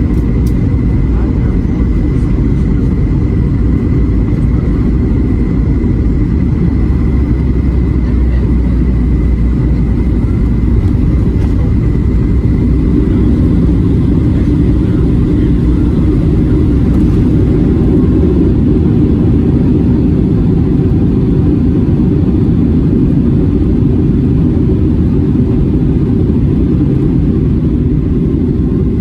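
Boeing 757-200 cabin noise: a steady, loud jet engine and airflow rumble, with a thin high whine over it that fades out about twelve seconds in.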